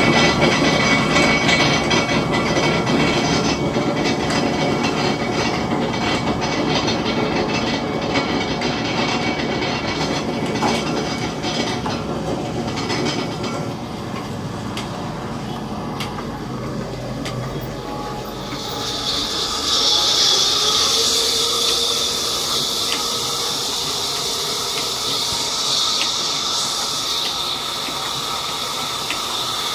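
Large belt-driven sawmill band saws running with a steady mechanical hum and rattle as a mahogany slab is sawn. About two-thirds of the way in a strong, high hiss joins as the blade cuts through the wood.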